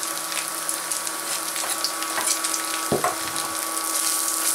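Chopped bacon frying in its own rendered fat, a steady sizzle with small crackles as minced garlic is added and stirred in with a spatula. A single knock about three seconds in.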